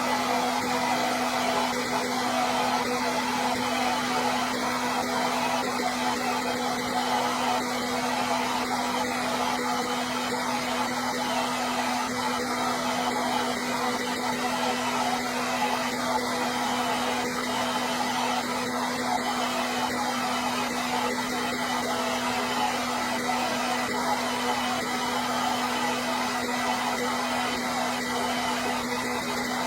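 Hair dryer running steadily: even blowing-air noise with a constant motor hum, unchanging throughout.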